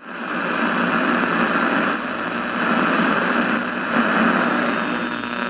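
Static hiss from a portable radio being tuned: a steady hiss with faint steady tones underneath, cutting off suddenly at the end.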